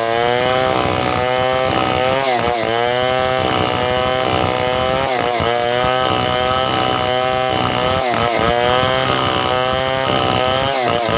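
Chainsaw running at high revs while cutting wood, its pitch dropping under load and climbing back about every two to three seconds.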